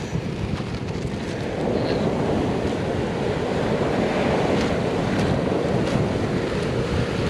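Wind buffeting the microphone over the steady wash of sea surf on a beach. There are a few faint crunches of footsteps on pebble- and shell-strewn sand.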